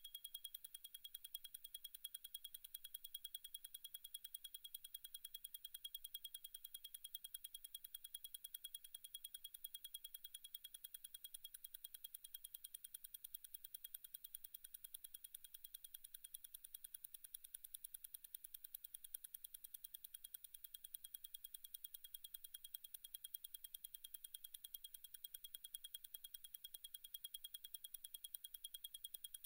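Zenith El Primero 3600 automatic chronograph movement ticking, its balance beating at 36,000 vibrations per hour, so ten beats a second. The ticks are faint, rapid, even and high.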